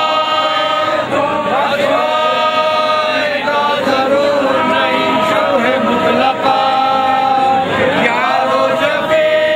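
Men's voices chanting a Muharram lament (noha) in long, drawn-out sung lines.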